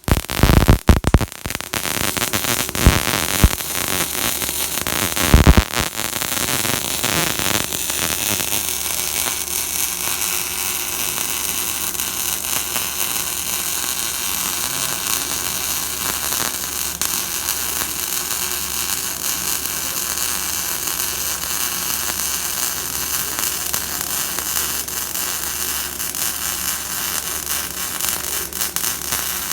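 Electric arc welding: the arc strikes with a few sharp pops in the first seconds, then burns as a steady hiss.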